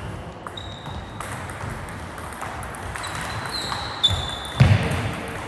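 Table tennis rally: the ball clicking off the bats and the table at an uneven pace, with high squeaks from shoes on the wooden floor and a heavy thump of a footstep near the end.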